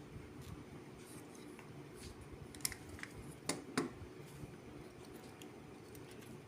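Light handling of a disassembled molded case circuit breaker's plastic and metal parts, with a few short sharp clicks near the middle over faint background hum.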